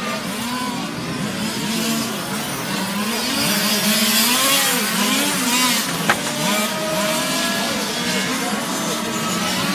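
Several 1/5-scale RC racing cars' small two-stroke petrol engines revving up and easing off as they lap the track, their pitches weaving over one another. A single sharp knock about six seconds in.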